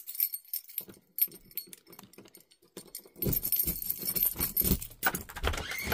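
Plastic clothes hangers clinking and rattling while hanging shirts rustle close to the microphone, with low knocks and handling thumps getting louder about halfway through.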